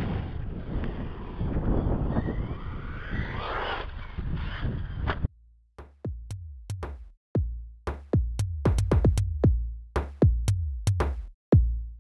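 Wind rumbling on the microphone with a radio-controlled buggy's motor, which revs up in pitch about three seconds in. About five seconds in the sound cuts off and electronic music with a hard drum-machine beat takes over.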